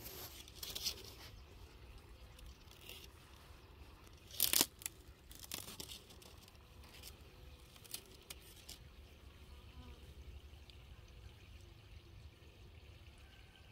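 Dry corn leaves and bean vines rustling and crackling as someone moves through them: scattered sharp crackles, the loudest about four and a half seconds in, over a low steady rumble.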